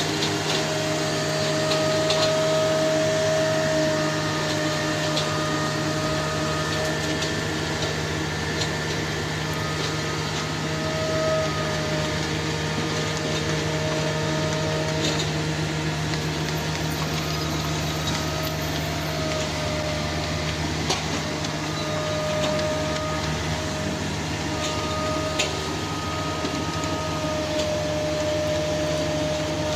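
A machine running steadily, with a low hum and a high whine that swells and fades every few seconds.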